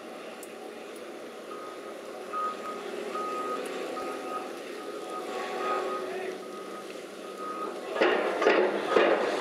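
Reversing alarm on site machinery beeping repeatedly over the running hum of heavy diesel plant. About eight seconds in, loud repeated clanking and banging of the heavy machinery starts.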